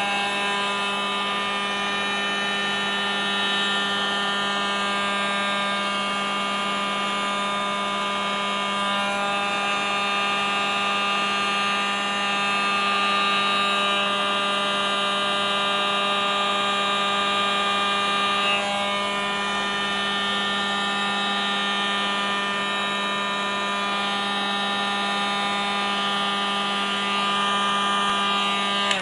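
Handheld TGF electric hot air gun running steadily: its motor and fan give an even, unbroken hum.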